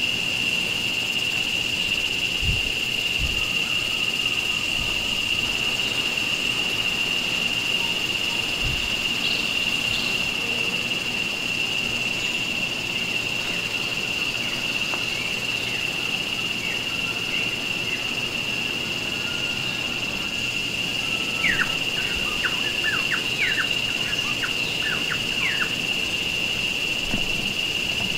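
Forest ambience: a steady, high-pitched insect drone, with a bird giving a quick run of short, falling chirps about three-quarters of the way through. A few dull low thuds come in the first third.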